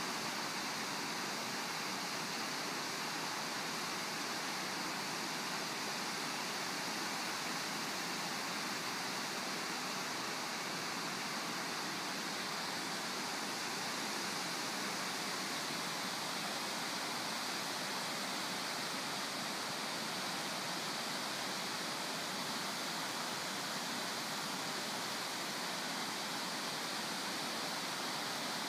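Steady rush of river water spilling through the gates of the Starved Rock Lock and Dam, with a faint, steady high-pitched tone above it.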